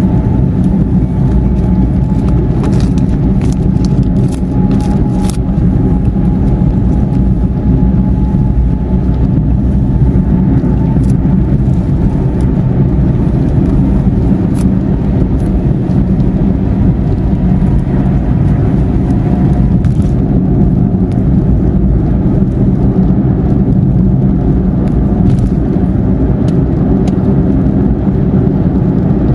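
Steady road and engine noise of a car cruising on a highway, with scattered light ticks above it.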